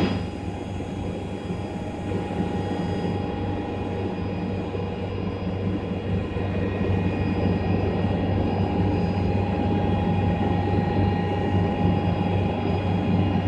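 Atlas Copco oil-free rotary screw air compressor running: a steady machine drone with a strong low hum and several steady whining tones above it.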